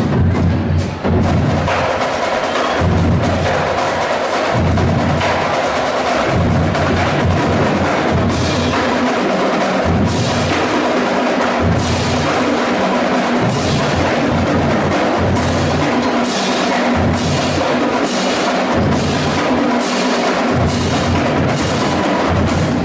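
A sheet of tin foil shaken to imitate thunder: a loud, continuous metallic rattling that swells again and again, with a run of sharp crinkles through it.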